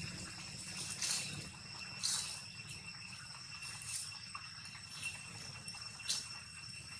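Steady high-pitched drone of insects, with a few short rustling hisses about a second apart.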